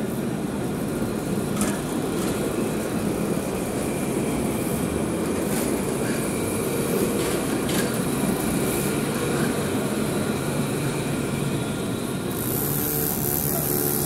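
Alstom Citadis tram running past on street rails: a steady low rumble of wheels and drive with faint whining tones. A short burst of hiss comes near the end.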